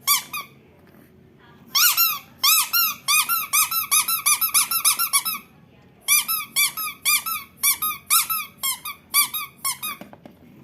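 Squeaky rhinoceros toy squeaked over and over in quick runs, about four short squeaks a second, each rising and then falling in pitch. There are two long runs with a short pause between them.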